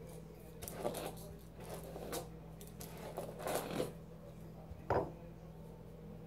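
Long hair rustling as it is brushed and gathered by hand, in a run of short scratchy strokes, then a single sharp knock about five seconds in, as a plastic hairbrush is set down on the counter.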